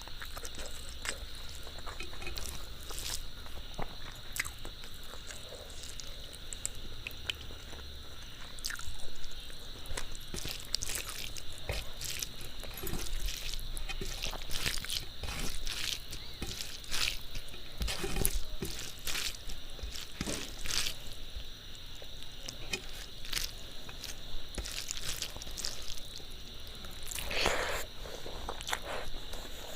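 Close-miked eating: wet chewing and lip smacks with scattered sharp mouth clicks, over a faint steady high whine. There is a longer wet sound near the end.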